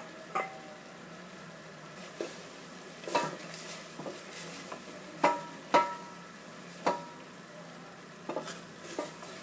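A spoon stirring risotto in a pot, knocking against the pot about ten times in irregular sharp clinks, some with a short ringing tone, over a faint steady hiss from the cooking pot.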